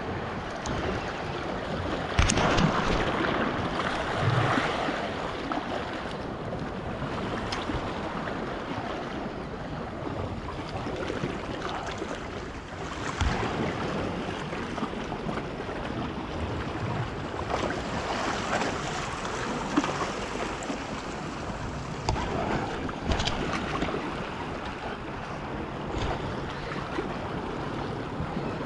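Sea waves washing against a rocky shore, with wind buffeting the microphone and a few brief knocks.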